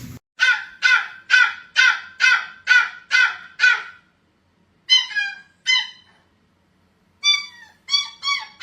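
An animal's short repeated calls, each falling in pitch: a fast run of eight, about two and a half a second, then two more, then another run of four.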